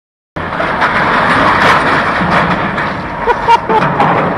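Loud steady grinding of a bulk carrier's steel hull scraping along a container ship, with scattered knocks and a few short squeals of metal about three seconds in.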